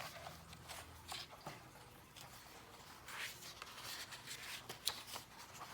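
Paper rustling as the pages of a thin photo book are turned and handled: soft swishes with a few light clicks, the loudest swish about three seconds in.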